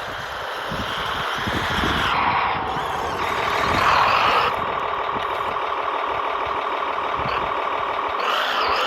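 Radio-controlled Kyosho Blizzard 2.0 tracked snow vehicle running, its electric motor and gears whining, the pitch rising and falling several times as it speeds up and slows. There is a low clatter in the first couple of seconds.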